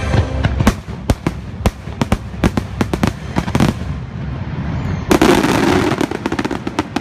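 Fireworks finale: aerial shells bursting in a rapid, irregular string of sharp bangs and crackles, with a dense, louder volley about five seconds in.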